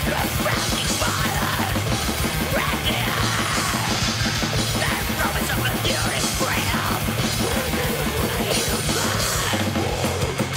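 Blackened thrash/death metal played by a full band: distorted guitar and bass over fast, dense drumming, with harsh screamed vocals on top.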